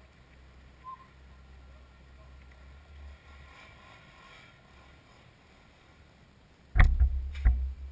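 A low steady rumble, then two loud, sharp knocks about two-thirds of a second apart near the end.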